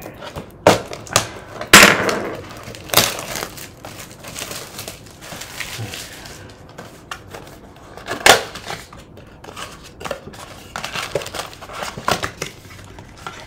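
Cardboard blaster box of trading cards being pierced with a pointed tool and torn open by hand: irregular sharp rips and crackles of cardboard, loudest about two seconds in and again about eight seconds in.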